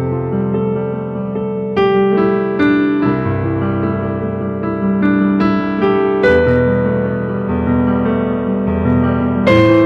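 Keyboard instrumental: slow, sustained chords on an electric piano, changing every second or few seconds.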